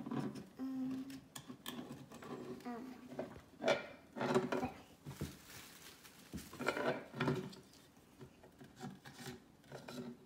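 Plastic toy parts of a Play-Doh dentist playset being handled on a wooden table: scattered clicks, knocks and rubbing as the toy head is worked and Play-Doh is pressed into it.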